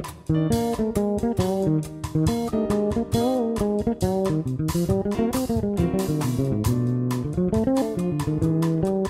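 Instrumental bossa nova jazz: a plucked guitar melody over double bass, with a steady rhythmic pulse.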